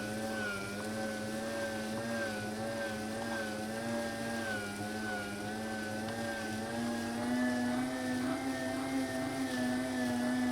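Electric meat grinder motor running steadily, most likely grinding chocolate cookies, with a hum that wavers slowly in pitch and rises slightly after about seven seconds.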